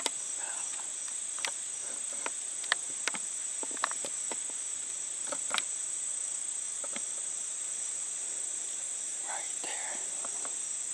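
Steady, high-pitched drone of an insect chorus, likely crickets, with a scattering of sharp clicks in the first half.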